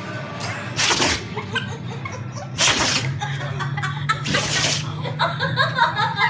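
A dog sneezing three times in a row, each sneeze a short sharp burst of breath, roughly every second and a half to two seconds.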